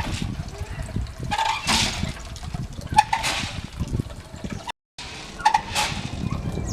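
Water running and splashing through a gatakon water device, which goes 'gatakon' with a clunk and a short ring about every second and a half as it tips.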